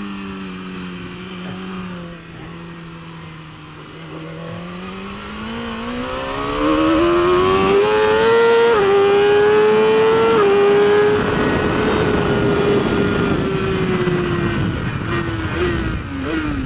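2019 BMW S1000RR's inline-four engine heard onboard at a track: revs sag through a corner, then climb hard under acceleration with two quick upshifts, wind rush growing loud as speed builds, and the revs ease off near the end.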